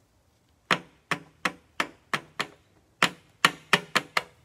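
A rigid plastic top loader holding a sleeved trading card is tapped on a countertop about eleven times in two quick runs of sharp knocks, settling the card down into the holder.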